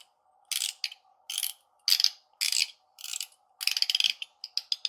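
Zirconium mechanical haptic fidget coin being turned, its top ratcheting through detents in short bursts about every half second, then a quicker run of single clicks near the end.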